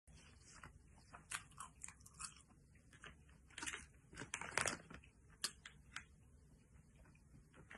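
A person chewing a crunchy, spicy soy snack stick: faint, irregular crunches, densest and loudest a little past the middle.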